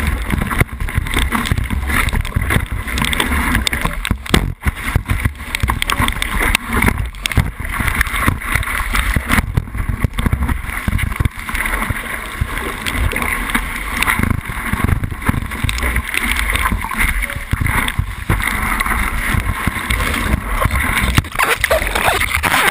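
Wind buffeting a board-mounted GoPro's microphone and water rushing and spraying against a kiteboard as it rides through waves, a loud, continuous, churning noise.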